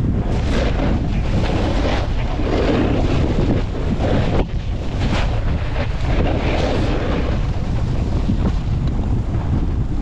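Wind buffeting the microphone of a skier moving downhill: a heavy, steady rumble, with the hiss of skis on snow swelling every second or two.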